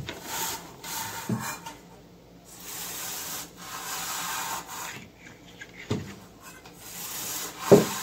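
Twisted-wire bottle brush with stiff nylon bristles scrubbed back and forth through a dust-clogged refrigerator condenser coil: a dry rubbing, scratching sound in several strokes, scouring out packed dust. A few short knocks as the brush strikes the metal, the loudest near the end.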